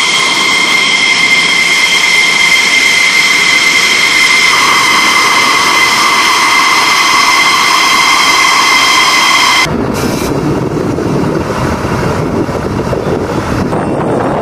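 F-16 Fighting Falcon's jet engine running as the fighter taxis in, a loud steady high-pitched turbine whine. About ten seconds in the whine stops abruptly and gives way to a lower, rough rushing noise.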